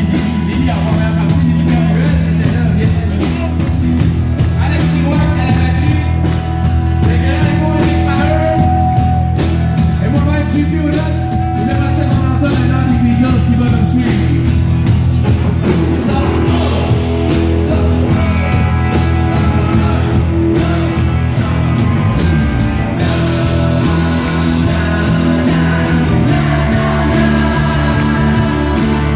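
Live country band playing a song, with several voices singing into microphones over acoustic and electric guitars and drums.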